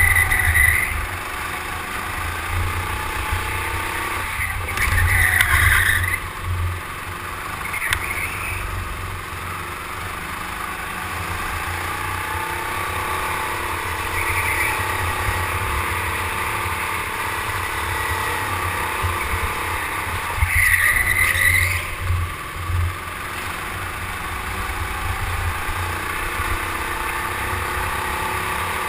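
Go-kart running at speed, heard from on board: a steady motor drone, with tyres squealing briefly through the corners several times, loudest about five and twenty-one seconds in, over a low wind rumble on the microphone.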